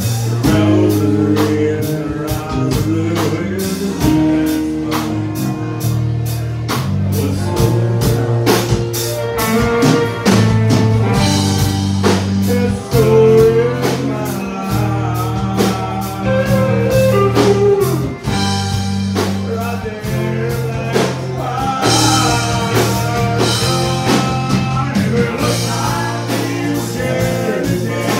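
Live band music: a man singing lead over a strummed acoustic guitar, electric bass and a drum kit, with a steady beat.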